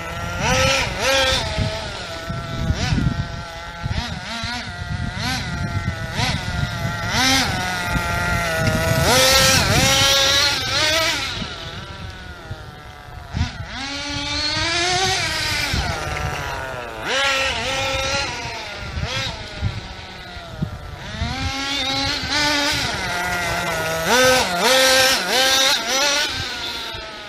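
A CEN Fun Factor ST radio-controlled stadium truck's engine running as the truck is driven, its pitch rising and falling over and over with throttle, and louder on close passes.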